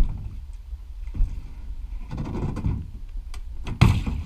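Kayak hull knocking and scraping against the stone bank edge as it is held alongside, with a low rumble under it and a louder thump near the end.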